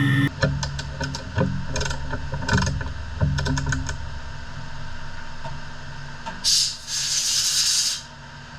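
Workshop sounds: a quick run of mechanical clicks and knocks over a low hum, then sparser ticks, and a hiss lasting about a second and a half from about six seconds in.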